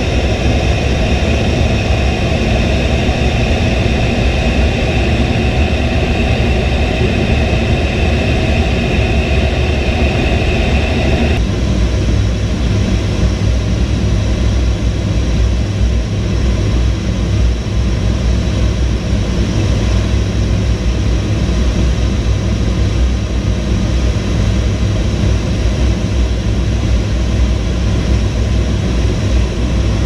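A-10 Thunderbolt II cockpit noise in flight: a steady heavy rumble of the engines and rushing air heard from inside the cockpit. About eleven seconds in the sound changes abruptly, losing its higher whistle and leaving the low rumble.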